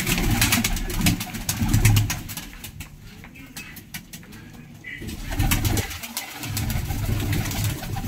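A flock of domestic pigeons cooing. Low coos come in the first two seconds and again from about five seconds on, with a quieter gap between, and short sharp clicks run throughout.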